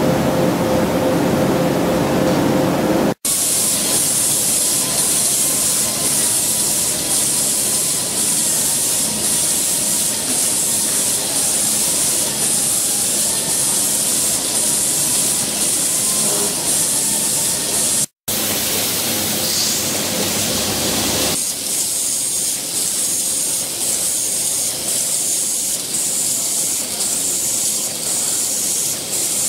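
Automatic zipper slider assembly machine running, with a steady mechanical din and a hiss that pulses regularly, a little more than once a second, as its pneumatic stations cycle and the vibratory bowl feeders run.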